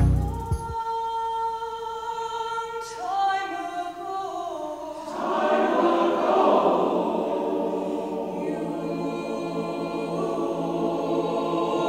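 Mixed choir singing slow, held chords that move in steps, swelling fuller and louder about five seconds in.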